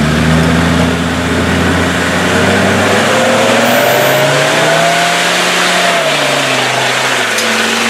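Land Rover Discovery TD5's five-cylinder turbodiesel engine working under load as the truck climbs out of a deep mud rut. Its note rises about halfway through, then falls back near the end.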